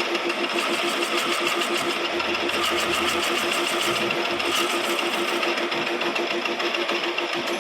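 Lathe running steadily with a rapid, even mechanical pulsing.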